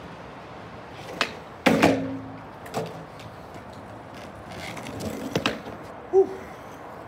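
Skateboard on brick paving: a click, then the board clattering down hard with a short ringing, then the wheels rolling over the paving slabs, louder and clattering over the joints as it passes close. A short squeak sounds near the end.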